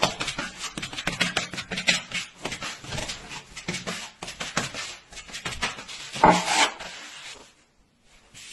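A rigid piece of plasterer's straightedge scraping gypsum filler along a drywall joint in repeated short strokes, with one louder stroke about six seconds in; the scraping stops about a second before the end.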